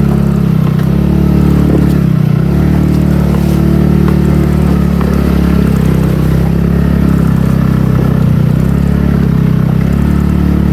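TVS NTorq 125 scooter's single-cylinder engine running loud under throttle as it pulls up a steep, rough track. Its pitch dips briefly twice as the throttle eases and picks up again.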